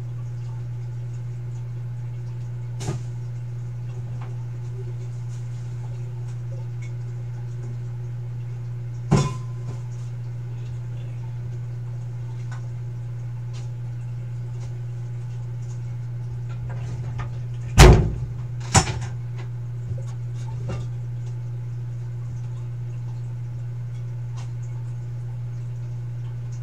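K40 laser cutter running with a steady low hum, broken by a few sharp knocks, the loudest two close together about two-thirds of the way through.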